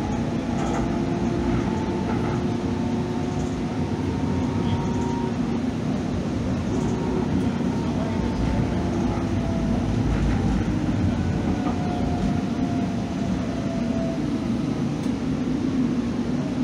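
Calgary CTrain light rail car running, heard on board: a steady rumble with faint motor whine tones that slide slowly up and down in pitch.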